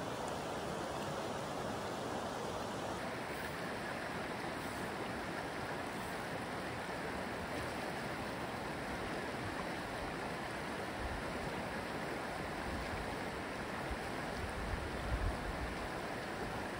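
Rushing water of a rain-swollen, fast-flowing mountain stream: a steady wash of noise, with a few low bumps near the end.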